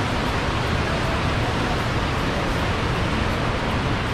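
River water rushing steadily over rocky rapids, an even hiss with a low rumble underneath.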